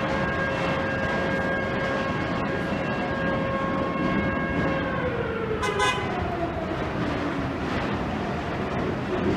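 Model 2 electromechanical factory siren heard from a distance, sounding the attack signal: it holds a steady tone, then winds down in pitch from about five seconds in, over a constant background rumble. A brief sharp noise cuts in about six seconds in.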